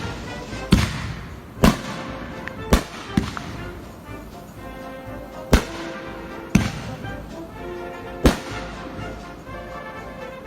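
Fireworks exploding: about eight sharp bangs at irregular intervals, each trailing off in a brief rumble, with music playing underneath.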